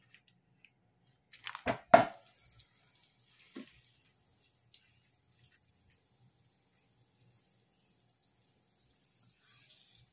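A stick of butter dropped into a hot nonstick frying pan: a few sharp knocks about two seconds in and a smaller one a second and a half later, then faint sizzling that slowly grows as the butter melts and foams.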